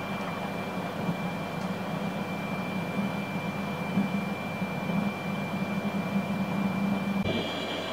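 Steady running noise inside a Yamagata Shinkansen (Tsubasa) carriage at speed: an even rumble and hiss with a low hum and a thin high whine. The sound changes abruptly just before the end.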